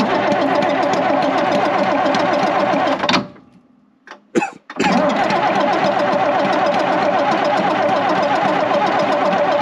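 AEC Matador diesel engine being cranked over on its starter in a stone-cold start, with no glow plugs or manifold heater. It cranks for about three seconds, stops and winds down, gives two short stabs, then cranks steadily again from about five seconds in as the engine begins to fire.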